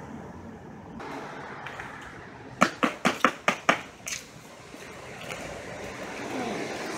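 A quick run of about six sharp clicks or chips, close together, about two and a half seconds in, with one more a moment later, over a steady outdoor background.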